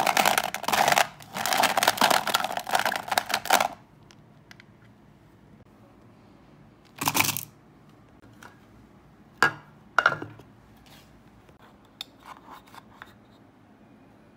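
Hard wax pieces clattering for a few seconds as a hand sifts through a plastic drawer full of them, then a few single clinks, about seven and ten seconds in, as pieces drop into the metal pot of a wax warmer.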